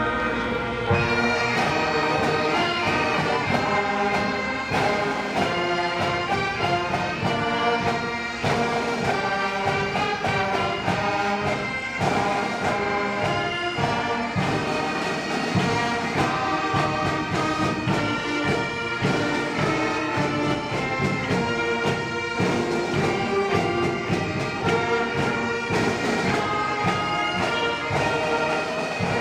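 A live band playing a tune: wind instruments carry the melody over steady drumming.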